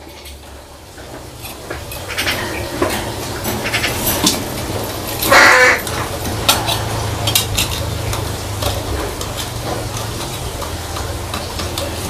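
Scattered light metallic clicks and taps from a pet crow handling a metal tin lid against its cage bars, with one short crow caw about five seconds in, over a steady low hum.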